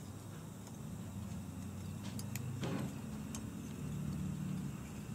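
Low steady hum with a few faint ticks, the quiet handling noises of holographic tinsel being wrapped onto a fly hook in a tying vise.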